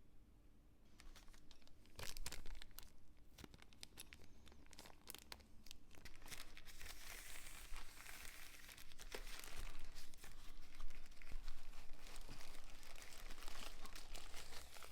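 Packaging wrapper being handled and pulled open by hand, with crinkling and tearing. Scattered crackles start about a second in and thicken into steady crinkling in the second half.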